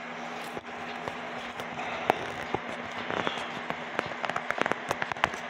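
A steady low hum with light, irregular clicks and taps: one about two seconds in, then a quick run of them over the last two seconds or so.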